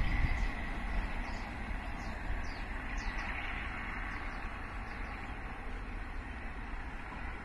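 Freight train hauled by a diesel locomotive rumbling away into the distance, its noise fading steadily. Faint short high chirps sound over it during the first few seconds.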